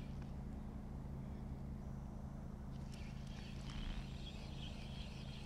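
A steady low motor hum, even and unchanging, with a few faint ticks and taps in the second half.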